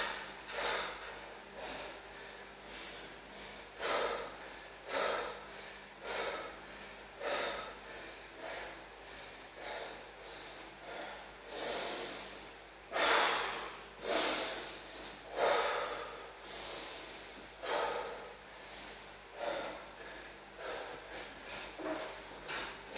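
A man breathing hard and heavily, a loud exhale about once a second, the strongest around the middle: winded from a high-intensity circuit of deadlifts, burpees and chin-ups.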